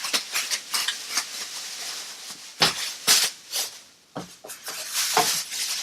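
Kitchen containers and packaging being handled and opened by hand: rustling and clicking, with a few sharp knocks, the loudest pair about three seconds in.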